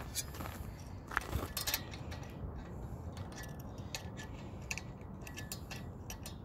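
Adjustable wrench and the steel tripod's bolt and clamp clicking and clinking as the wrench is fitted and worked on the bolt: a scatter of small metal taps, several close together about a second in.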